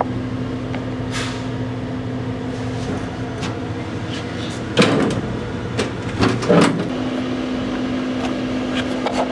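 Steady hum of a railroad passenger car's air-conditioning and electrical equipment running on shore power, with a couple of knocks about halfway through.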